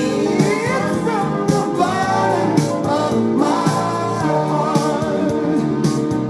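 A song with a sung vocal line and a steady beat, played back from a record on a Technics SL-5 linear-tracking turntable.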